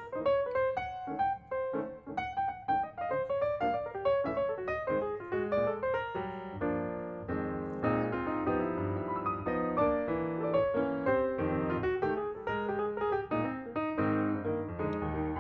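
Piano background music: a quick melody of struck notes over sustained lower chords.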